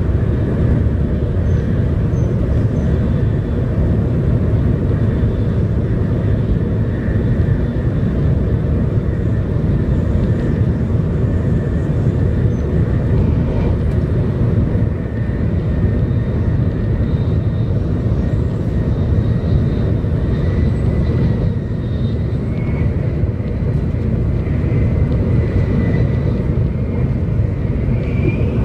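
Steady cabin noise of a 700 Series Shinkansen running at speed on the viaduct: a continuous low rumble and rush of wheels and air, with a faint high tone drifting in and out.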